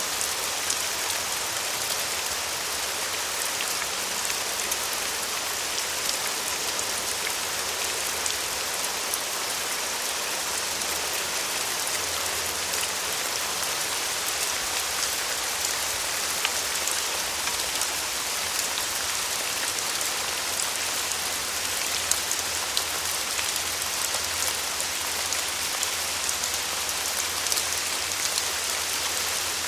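Steady rain falling: an even, dense hiss with many small drop taps scattered through it.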